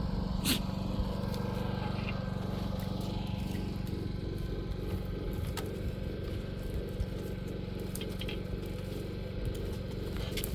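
An engine running steadily with an even low drone, with a few faint clicks over it.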